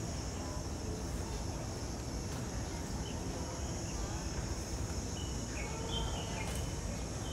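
Outdoor ambience: a steady high-pitched insect drone over a low background rumble, with faint distant voices and a few short bird chirps.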